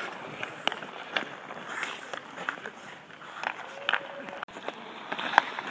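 Ice hockey sticks clacking against pucks and skate blades scraping the ice, with a series of sharp clicks, the loudest about five seconds in.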